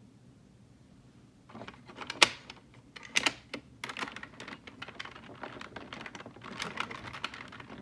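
Irregular clicks, taps and rattles of hard plastic as a roleplay toy belt buckle is handled, starting about one and a half seconds in, with a few sharper knocks among them.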